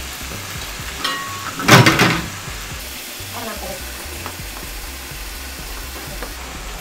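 Chicken, garlic and onion sizzling steadily in a frying pan while a spatula stirs in cream of mushroom soup. A light clink about a second in and a brief, louder stirring noise about two seconds in.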